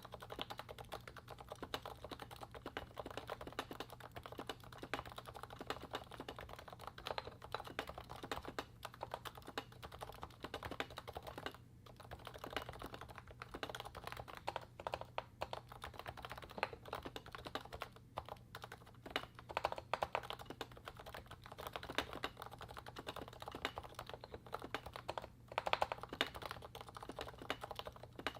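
Continuous typing on a Realforce 87U Topre keyboard (55 g electrostatic capacitive switches fitted with Novatouch sliders lubed with Tribosys 3204) under DEV/TTY MT3 PBT keycaps: a dense, steady stream of keystrokes with a few brief pauses.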